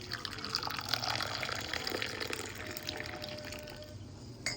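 Liquid pouring in a steady stream, thinning out and stopping about four seconds in, followed by a short click.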